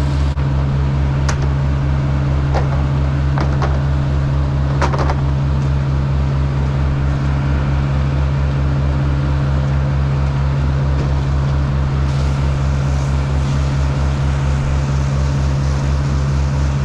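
Commercial potting boat's engine running steadily under way: a deep, even throb with a steady hum. A few light knocks come in the first five seconds.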